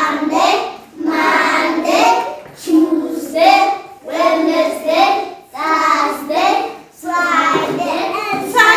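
Young children singing a days-of-the-week chant together, in short phrases of about a second each with brief breaks between them.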